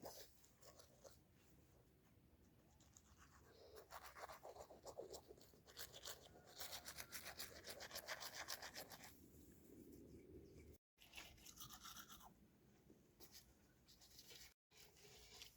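Near silence, with faint scratchy rustling and ticking in short clusters through the middle.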